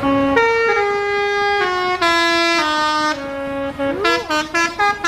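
A tour bus's 'telolet basuri' musical horn playing a melody: a string of held notes stepping up and down in pitch, then a swooping note about four seconds in and a quick run of short, choppy notes.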